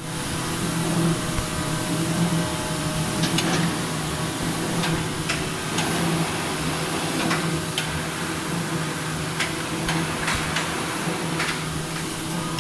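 Automatic laminated corrugated-board turning machine running: a steady motor hum with irregular sharp clacks as the boards are handled.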